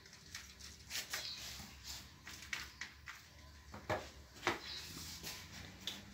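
Scattered light clicks and taps of a spoon and utensils against dishes and a pan while food is being prepared, over a faint low hum.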